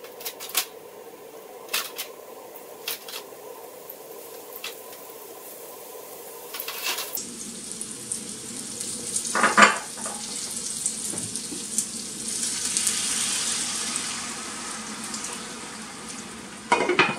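Gyoza dumplings being set down in an oiled frying pan with light clicks and taps. About seven seconds in, hot oil starts to sizzle steadily, swelling and then easing off, with a sharp clatter partway through. Near the end water is poured into the pan, with a brief loud burst.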